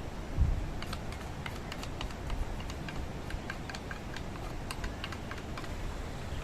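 Cutlery clicking against a plate as someone eats, with many light, irregular taps, over a low rumble of wind on the microphone.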